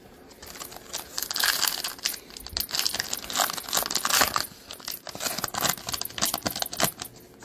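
Foil wrapper of a trading card pack being torn open and crinkled by hand: an irregular run of crinkles and rips from about a second in until near the end.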